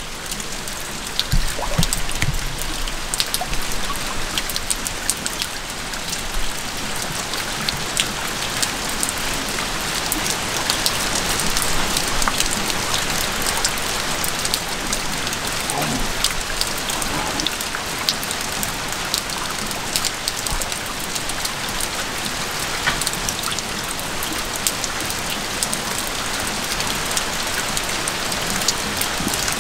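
Steady rain: an even hiss with many small drop ticks.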